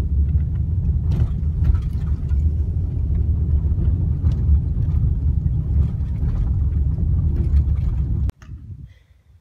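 Steady low rumble of a car driving on a dirt road, heard from inside the cabin, with scattered light ticks. It cuts off suddenly near the end.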